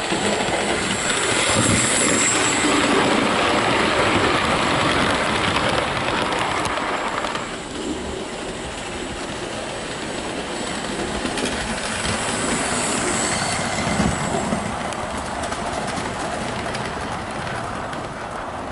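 Hornby OO gauge model of the steam locomotive 71000 Duke of Gloucester running along model railway track hauling six coaches, with a steady rolling rattle of wheels on rail. The sound swells as the train passes close, eases a little before halfway and swells again later.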